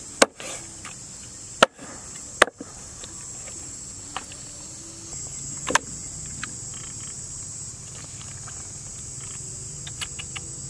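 A meat cleaver chopping through snake pieces on a wooden cutting board: three sharp chops in the first two and a half seconds, then a few soft knocks and clicks. A steady high insect chirring runs underneath.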